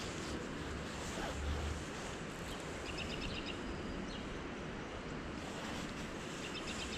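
Steady rush of flowing creek water, with two short runs of faint high ticks.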